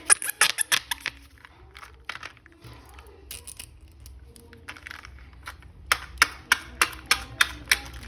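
Plastic being handled: sharp clicks and crinkles in a quick run during the first second and again near the end, with quieter rustling in between.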